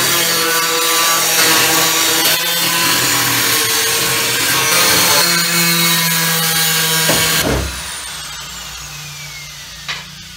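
Angle grinder with a thin cut-off wheel cutting into the steel floor pan, its pitch wavering as the wheel bites the metal. About seven and a half seconds in it is switched off and spins down with a falling whine, and a couple of knocks follow near the end.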